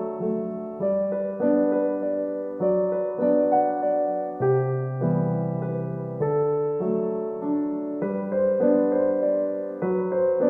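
Background piano music: slow, gentle chords and melody, each note struck and fading.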